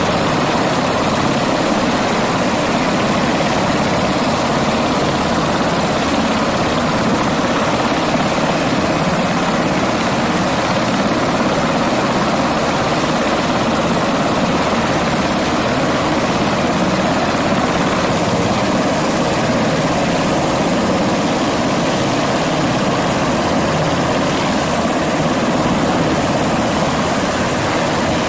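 Navy MH-60S Seahawk helicopters running on the ground with rotors turning: a loud, steady mix of twin turboshaft engine whine and rotor-blade noise.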